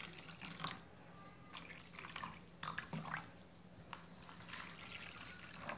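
Salt water poured from a jug into the small plastic compartments of a homemade copper-aluminium salt-water battery, in short, faint trickles and splashes with a few light clicks: the cells being filled one by one.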